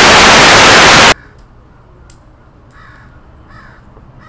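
Loud TV-static white-noise hiss for about the first second, cutting off abruptly. It is followed by a much quieter stretch with a few faint short calls.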